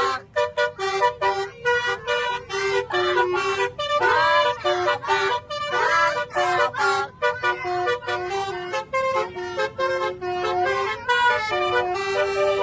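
Telolet bus horn playing a quick melody of short toots, note after note at changing pitches, with a stretch of wavering, sliding notes in the middle.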